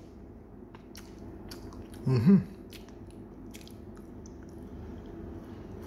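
A short murmured sound from a person's voice about two seconds in, over a low background with scattered faint clicks.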